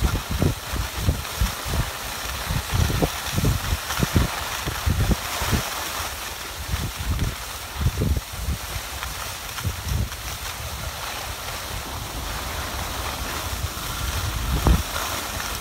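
Skis sliding over groomed snow with a steady hiss, and wind buffeting the microphone in irregular low gusts, most frequent in the first half.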